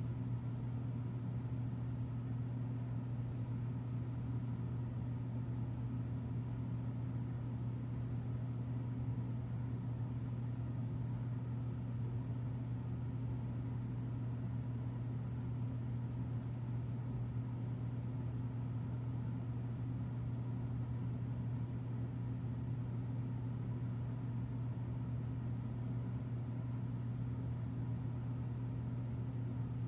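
A steady low hum that holds unchanged throughout, with no other events.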